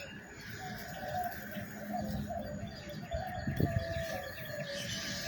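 Animal calls in a rain-soaked garden: a steady high-pitched call with repeated lower, wavering calls over it. A low thump comes about three and a half seconds in.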